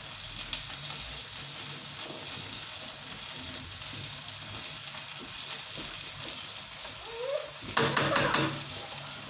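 Food sizzling steadily in pans on a gas burner. About eight seconds in, a brief loud clatter of a spoon stirring in a steel pan.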